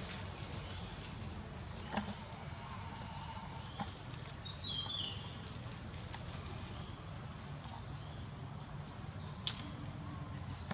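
Outdoor ambience over a steady low rumble, with a few short high chirps that slide downward about four seconds in, scattered light clicks, and one sharp click near the end.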